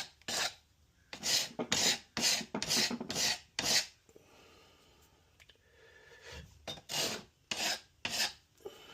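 Hand chisel scraping and paring wood out of a door's lock cut in short, quick strokes: a run of about nine strokes, a pause of about two seconds, then four more.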